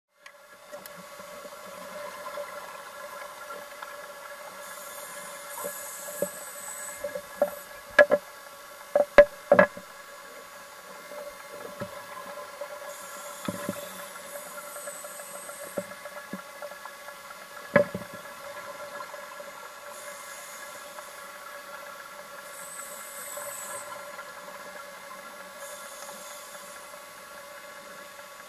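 Steady machinery hum with several fixed tones, picked up on an underwater camera. A cluster of sharp knocks comes about a third of the way in and one more a little past halfway, with short bursts of high hiss every several seconds.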